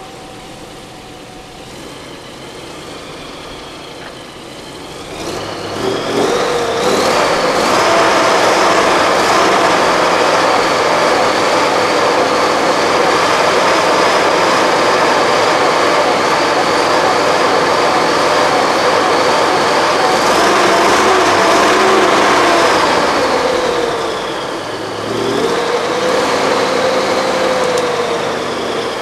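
ZIL-131 trial truck's engine ticking over, then revved hard about six seconds in and held at high revs for over fifteen seconds. The revs drop briefly near the end, then rise again.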